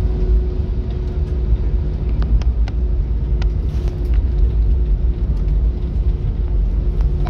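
Inside the cabin of an Airbus A321 taxiing on IAE V2500 engines: a steady low rumble with a thin steady hum over it. A few light clicks come between about two and four seconds in.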